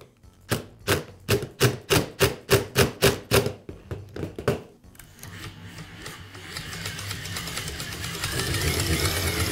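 Cordless impact driver tightening the crankshaft screw of a reciprocating saw gearbox: a rapid run of sharp, even clacks, about three or four a second, for roughly the first five seconds. After that a steady whirring hum builds gradually.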